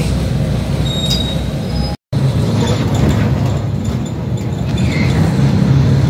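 City bus engine running, heard from inside the bus, with a low steady drone. About two seconds in the sound cuts out for an instant, and after it the engine drone is stronger and slowly grows louder as the bus drives along.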